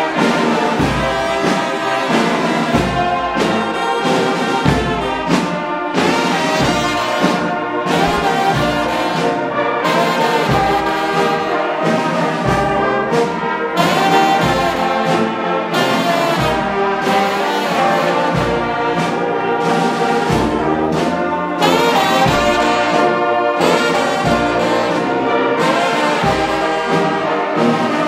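A brass band of trombones, trumpets, flugelhorns and sousaphone plays a piece together, with sustained chords over a regular pulse in the low notes.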